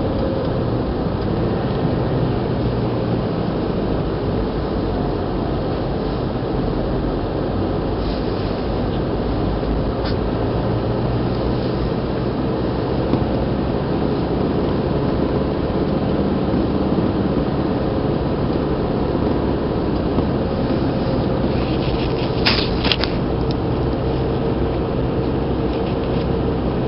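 Car engine and road noise heard from inside the cabin while driving, a steady low hum that shifts slightly in pitch. A couple of brief clicks near the end.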